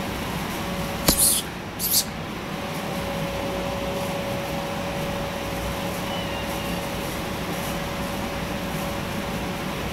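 Steady mechanical hum with a faint whine, and two short, loud hissy bursts about one and two seconds in.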